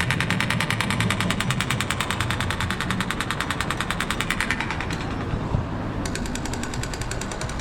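A fast, even mechanical rattle of about a dozen clicks a second over a low engine-like rumble. The rattle stops about five seconds in and comes back fainter a second later.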